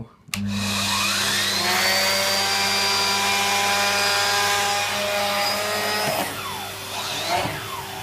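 Numatic Henry HVR200-12 vacuum cleaner switched on with a click on its low power setting, the motor and air-driven turbo brush spinning up with a rising whine over about two seconds, then running steadily. About six seconds in the whine breaks off and the sound gets quieter, with pitches sliding up and down.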